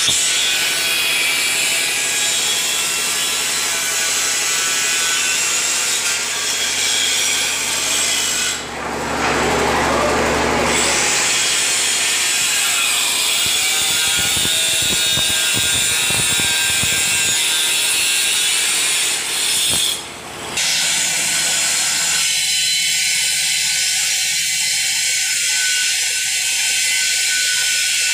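Handheld electric tile cutter running and cutting through ceramic tile with a steady, high-pitched whine. The level dips briefly about twenty seconds in.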